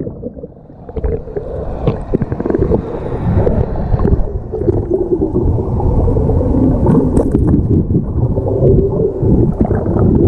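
Underwater sound picked up by a camera below the surface: a muffled, continuous rumbling and gurgling with a faint wavering hum and scattered small clicks.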